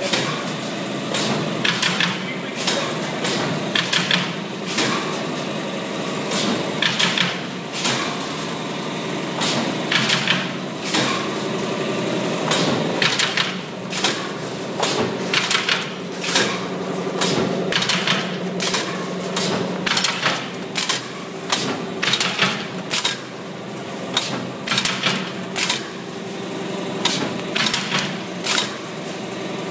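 Semi-automatic carton box stitching machine running. Its stitching head clacks sharply in quick clusters as it drives flat wire stitches into corrugated board, over a steady motor hum.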